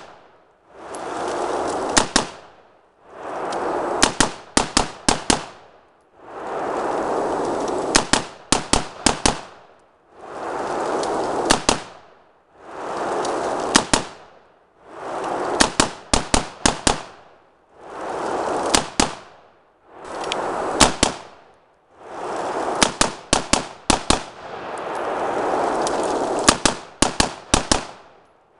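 Volleys of gunshots from a short-barreled carbine, two to five quick shots in each, repeating about every two to two and a half seconds. A hiss swells before each volley and drops away after it.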